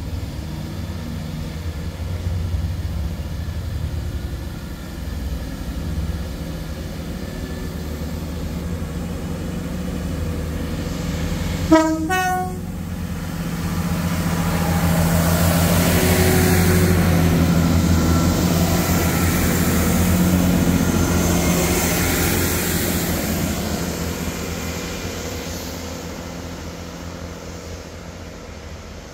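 Class 166 diesel multiple unit with its diesel engines running. It gives one short horn toot just before the midpoint, then grows louder as the engines work and the train moves off past, fading near the end.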